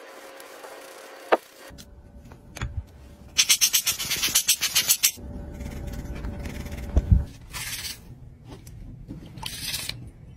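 Small hand tools working on watch parts: a tool rubbing on a watch dial, a sharp click about a second in, then a quick run of brisk brushing strokes, several a second, as a small brush cleans the watch hands in a glass dish. Scattered taps and scrapes follow.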